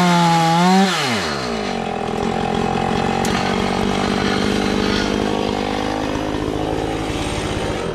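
Chainsaw on a chainsaw mill running at full throttle as it finishes the cut through the log. About a second in the throttle is let off and the revs fall to a steady idle, and the saw is shut off near the end.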